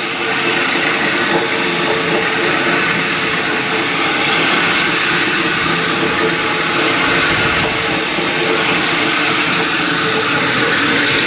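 Grinder running steadily with its pad grinding and polishing a marble surface: a continuous harsh rasp over a steady motor whine.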